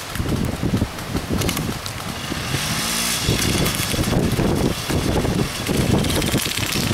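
Four-wheeler (ATV) engine running, its sound rising and falling unevenly.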